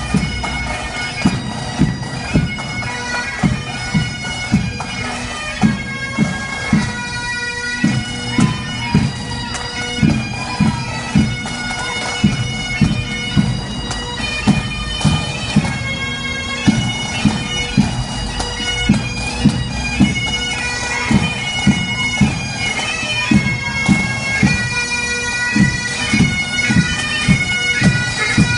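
Pipe band playing a march: bagpipes with steady drones under the moving melody, and drums beating a regular marching pulse of about two beats a second.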